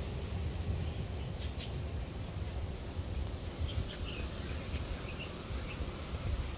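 Outdoor background: a steady low rumble, with faint short high chirps scattered through it, a few at a time.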